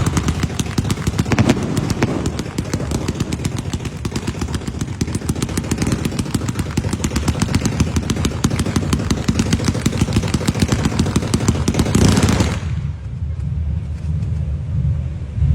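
Fireworks going off in a rapid, unbroken string of bangs and crackles that break off suddenly about twelve seconds in, leaving a lower background rumble.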